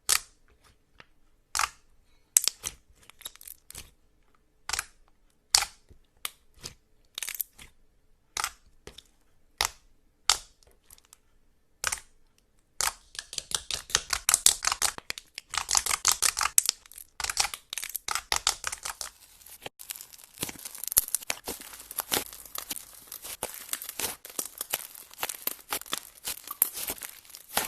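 Slime being worked by hand, with sharp wet pops about once a second for the first half, then a dense, continuous run of crackling and popping.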